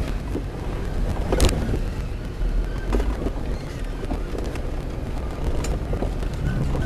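Jeep driving on a rough dirt trail: a steady low engine and tyre rumble with scattered knocks and rattles, the loudest knock about a second and a half in.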